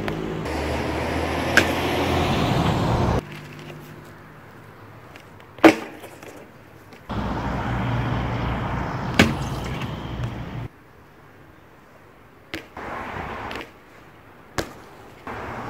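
BMX bike on concrete: tyres rolling with a rushing noise, broken by about five sharp knocks of the wheels landing on and hitting a concrete box. The rolling noise cuts in and out abruptly several times.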